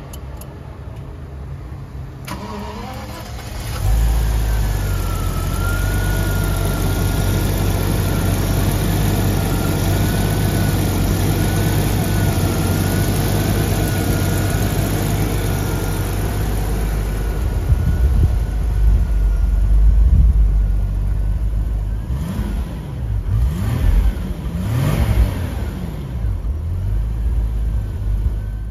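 1990 Jaguar XJS V12 engine cranked by the starter and catching about four seconds in, then running steadily with a thin, slightly wavering high whine over it. It is revved up and down a few times near the end.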